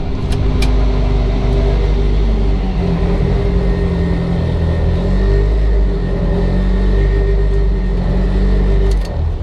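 Mitsubishi Evo 8's built turbocharged 2.0-litre 4G63 four-cylinder running on a chassis dyno, a loud steady engine note whose pitch steps up a couple of seconds in, then backs off suddenly near the end.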